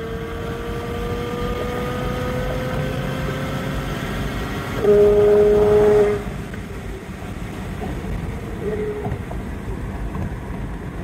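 Twin-turbocharged C8 Corvette's 6.2-litre V8 at full throttle, heard from inside the cabin, its drone climbing slowly in pitch. About five seconds in it turns louder at a lower pitch for about a second, then falls to a quieter, lower drone as the run ends.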